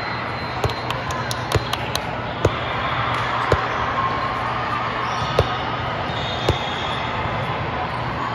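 Volleyballs being struck and bouncing on a hard court floor: about seven sharp thumps at irregular intervals, the loudest about three and a half seconds in. Under them runs the steady hubbub of many voices and play filling a large tournament hall.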